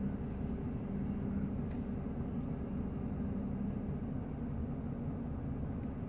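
Scania XT 560 Super truck's 13-litre six-cylinder diesel running steadily at low revs, heard from inside the cab as the truck creeps forward in maneuvering mode.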